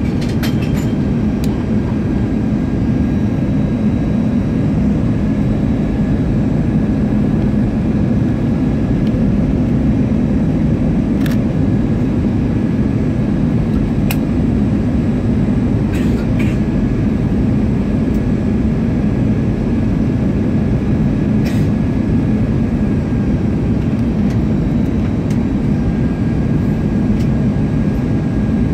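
Steady cabin noise inside an Airbus A319-112 on its approach: the hum of its CFM56 jet engines and the rush of air over the fuselage, with a thin steady whine and a few light clicks.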